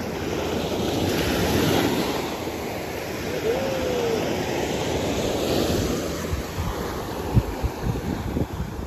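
Surf washing on a beach, with wind buffeting the microphone. A short call rises and falls about halfway through, and a few low thumps come near the end.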